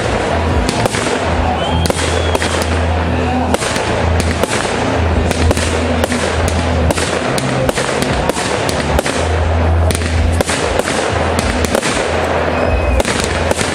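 Fireworks going off in a rapid, unbroken barrage: many shots and bursts a second as shells launch and explode overhead.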